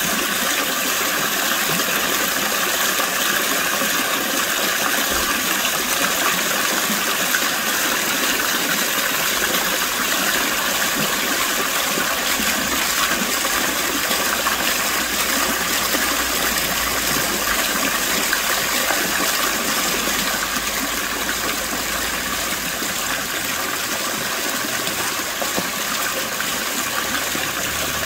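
Water from an artesian spring splashing down over rocks in a small cascade: a steady, unbroken rush.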